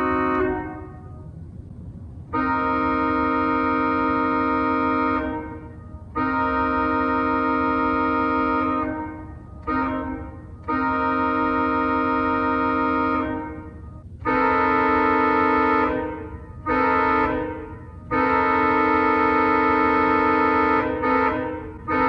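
Pipe organ sounding sustained chords that imitate North American locomotive air horns. The chords come in horn blasts in the grade-crossing pattern: long, long, short, long. Then a brighter chord, imitating another horn, starts with long, short, long blasts.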